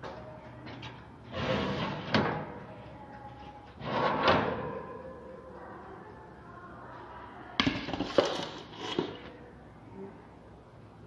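Clatter of a home oven's door and rack and a metal cake pan being handled as a baked cake is taken out: three bursts of scraping and banging, the last with a couple of sharp knocks about eight seconds in.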